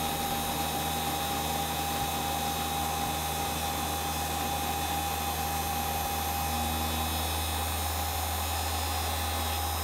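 Treadmill DC motor spinning an end mill in an ER32 collet holder, running at a steady speed with a constant hum and a steady whine as it mills a flat on a brass nut. The motor is fed from a pulse-width-modulated speed controller.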